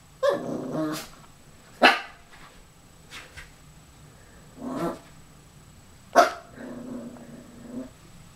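Lhasa apso puppy giving several short, sharp barks with low growls between them, the longest growl near the end, as it play-barks at its own reflection in a mirror.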